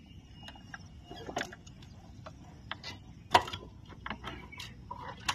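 Scattered mechanical clicks and knocks from a Bajaj CT110 motorcycle being readied by its rider, the sharpest about three and a half seconds in.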